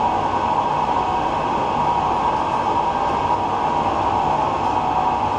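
Big 36-by-144-inch engine lathe running steadily at about 112 RPM on its temporary belt-driven motor, taking a carbide turning cut under power feed.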